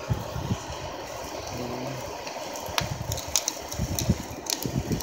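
Hair dryer running steadily as the air blower of a charcoal furnace. From about three seconds in, several sharp clicks and knocks come from a steel rod stirring molten aluminium in the crucible.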